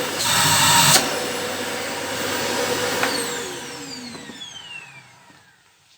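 Rowenta RO3786EA vacuum cleaner motor running, dropping to a lower level about a second in. About three seconds in there is a click, and the motor winds down with a falling whine until it goes quiet: the cleaner has been switched off.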